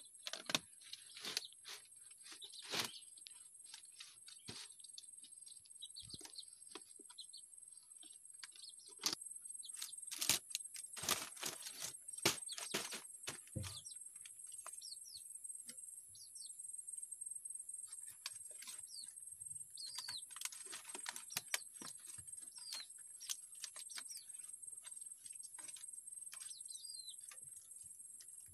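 Dry woven coconut-leaf basket and twine crackling and rustling as they are handled and tied onto a bamboo frame, with a dense run of sharp crackles in the middle. Birds chirp briefly in the later half over a steady high hiss.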